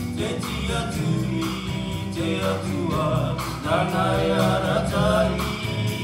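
Live band music from a Pacific island show: singing over guitar and a drum kit.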